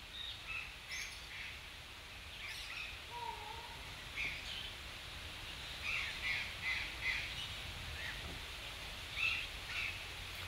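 Faint birds calling over a quiet outdoor background: short separate calls, several of them, with a run of three about six seconds in and two more near the end.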